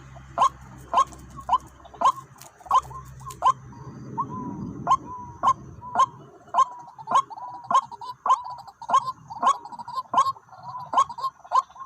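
White-breasted waterhen calling: a short, falling note repeated evenly about twice a second.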